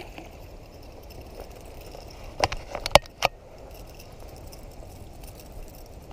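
A few sharp clicks and knocks, about four close together between two and a half and three and a half seconds in, from fishing tackle being handled on a kayak as a caught bass is landed, over a steady low background rumble.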